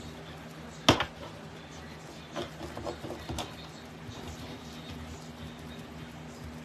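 Plastic deco mesh crinkling and crackling as it is rolled and scrunched by hand into a ruffle. There is one sharp crackle about a second in and a few smaller ones around the middle.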